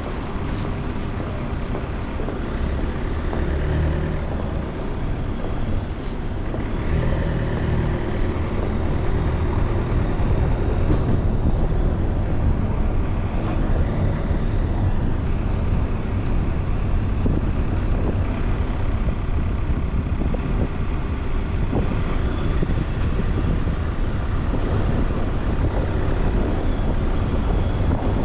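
A car driving in city traffic: a steady low rumble of engine and road noise.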